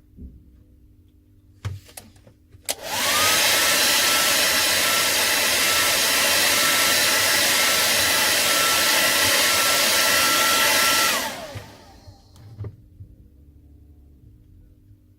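A handheld hair dryer clicks on about three seconds in and blows steadily for about eight seconds, then is switched off. Its motor whine rises as it spins up and falls away as it winds down.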